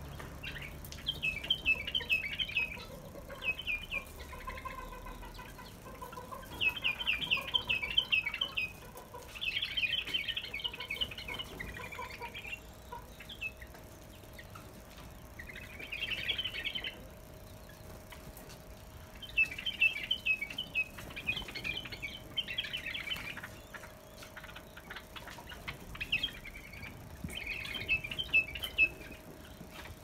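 White-eared bulbuls chattering in bouts of quick, high chirps, each a second or two long, again and again. It is the agitated calling of birds just put into an unfamiliar aviary.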